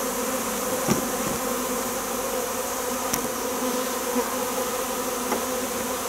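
Steady buzzing hum of a huge honey bee swarm, thousands of bees crawling over a hive box and flying in the air after being taken out of their cavity.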